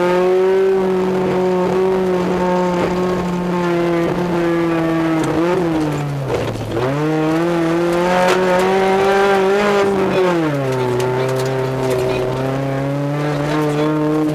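Interior sound of a Neon rally car's four-cylinder engine under hard throttle on a gravel stage, with road noise and stones rattling underneath. The engine pitch dips sharply about six seconds in and climbs again, then drops near ten seconds and holds at a lower pitch.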